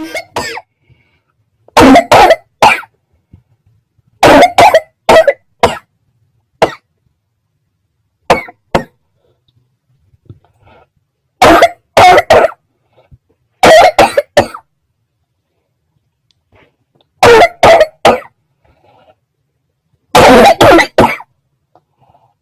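A person coughing loudly in repeated fits, each a quick run of two to four coughs, with short quiet gaps of a second or two between fits.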